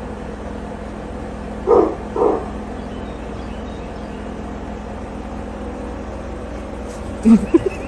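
Two short dog barks about half a second apart over a steady low hum, with a few quick yelps near the end.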